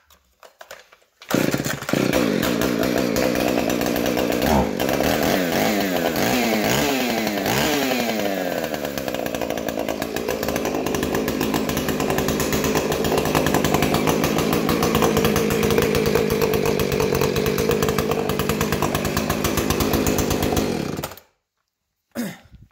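Modified Husqvarna 445 X-Torq two-stroke chainsaw, with ported intake and exhaust and a dual-port muffler, starting about a second in. Its pitch rises and falls as it is revved several times, then it runs more steadily until it cuts off suddenly near the end.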